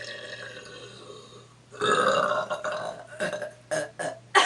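A woman burping on purpose: a quieter drawn-out burp at first, then a long, loud burp about two seconds in, followed by several short burps.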